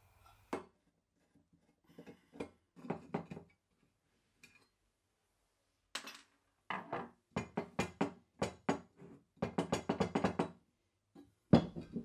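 Parts of a cast iron coffee grinder being handled: a series of short metal clinks and knocks, closely spaced in the second half, with the loudest single knock just before the end.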